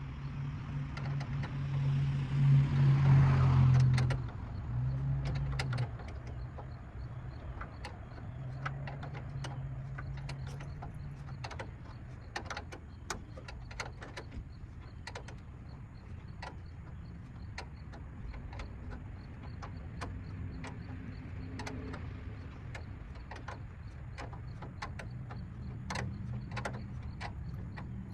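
Scattered sharp clicks of a hand tool and small metal screws as 7mm grille screws are driven in by hand, over a low steady hum. A louder swell of noise comes about two to four seconds in.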